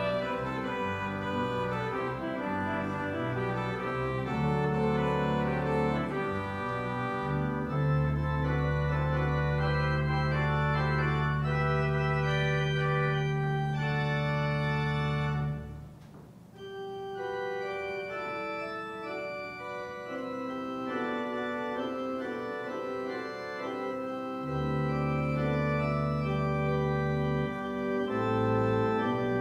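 Organ music playing slow, sustained chords over long held bass notes. Just after halfway the bass drops out and the music briefly softens, and the bass comes back near the end.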